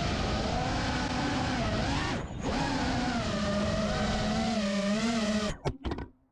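FPV quadcopter's motors and propellers buzzing, the pitch wavering up and down with the throttle. It dips briefly about two seconds in, then stutters and cuts off abruptly near the end.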